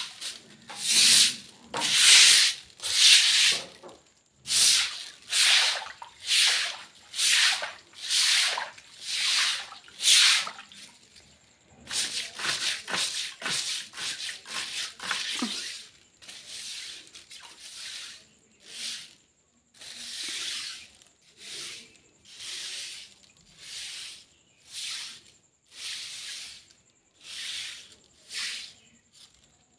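Brush or broom strokes on a wet concrete floor, one after another at roughly one or more a second. The strokes grow softer about halfway through.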